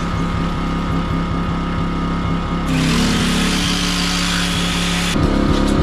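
Electric jigsaw cutting wooden lattice: the cutting starts about two and a half seconds in and stops suddenly about five seconds in, over a steady motor hum that runs throughout.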